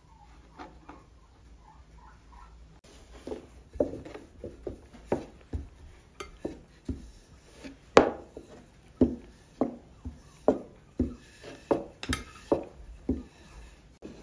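Thin wooden rolling pin rolling dough out on a wooden board, knocking against the board in a run of sharp wooden knocks about twice a second that starts about three seconds in.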